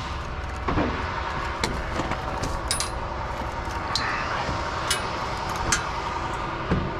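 Engine idling with a steady low rumble, with scattered sharp metallic clinks and knocks, about one a second.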